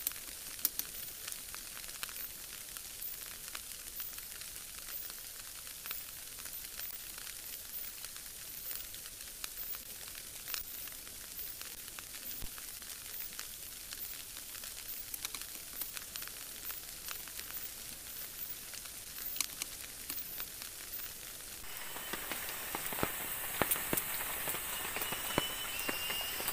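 Steady hiss of light rain in wet forest, with scattered small drip clicks. About 22 s in, a small campfire of damp sticks is heard close up, crackling and hissing.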